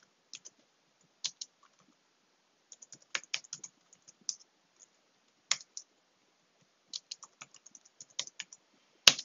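Typing on a keyboard: short runs of light key clicks broken by pauses, with one sharper, louder click just after nine seconds.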